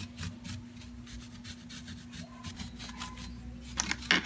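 Dry bristles of a flat paintbrush brushing in quick short strokes, several a second, over the raised, painted grapes of a grape-bunch bottle, dry-brushing on a highlight colour. Near the end come two louder scrapes.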